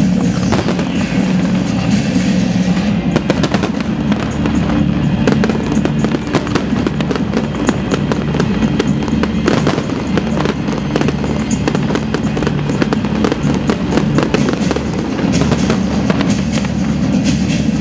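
Aerial fireworks bursting in quick succession, many sharp bangs and crackles, over loud music.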